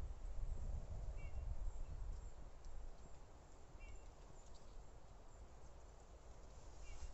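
A small bird gives a short two-note chirp three times, about three seconds apart, over a low rumble on the microphone that dies away after the first couple of seconds.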